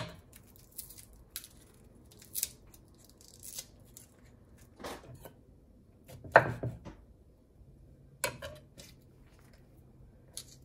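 Garlic cloves being peeled and cut with a knife on a wooden cutting board: crinkly tearing of the papery skin and scattered knocks of the blade on the board, the loudest about six and a half seconds in.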